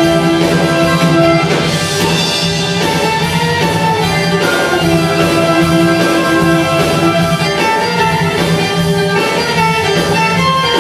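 Live acoustic ensemble playing: mandolin, flute, violin and guitar, with long held notes over plucked strings.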